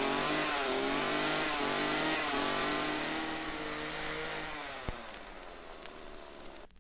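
Chainsaw revving unevenly, its pitch rising and falling, then fading out over the last two seconds.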